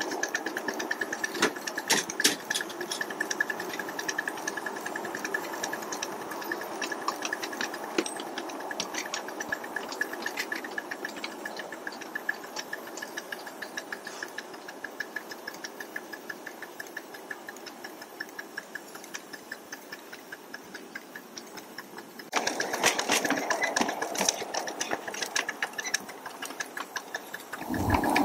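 5-inch gauge live steam locomotive running along the track: a rapid, even, rhythmic mechanical clatter with a steady high hiss, growing louder about three-quarters of the way through.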